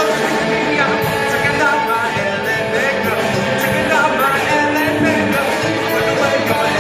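Live rock band playing: a lead singer over electric guitars, bass and drums, with the cymbals keeping a steady beat.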